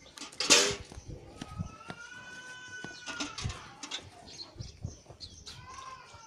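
An animal's long, drawn-out call with a slightly arching pitch, from about a second and a half in, and a shorter call near the end. A loud thump comes just after the start.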